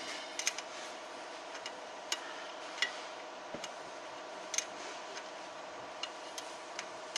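Scattered small sharp clicks and ticks at irregular intervals as a bicycle's front brake cable and brake arm are handled at the fork, over a steady background hum.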